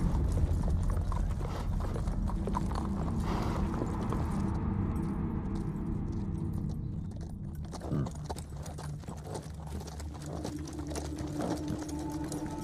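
Several horses' hooves clip-clopping at a walk on hard ground: a dense, irregular patter of hoof strikes over a low rumble.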